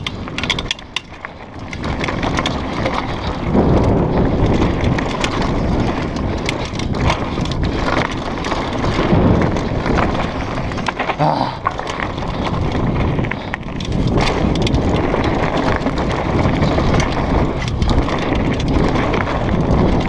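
Downhill mountain bike ridden fast over a rough dirt trail: wind buffets the microphone while the tyres rumble over dirt and stones and the bike rattles and knocks with many sharp clicks over the bumps.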